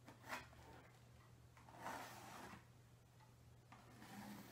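Faint scratching of a pencil on canvas as it traces around a round lid, in three short spells over a quiet room hum.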